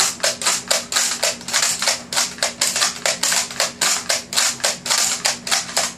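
Nerf Elite Strongarm dart blaster being slam-fired, its slide pumped rapidly with the trigger held: a fast run of sharp plastic clacks and firing pops, about six a second, that stops near the end.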